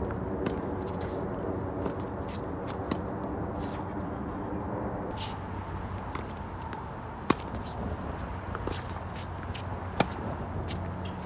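Tennis balls struck by rackets on a hard court: a few lighter ball strikes in the first three seconds, then two sharp, loud hits about seven and ten seconds in, the last a topspin forehand. Shoes scuff on the court surface throughout. A steady low hum in the first half cuts off suddenly about five seconds in.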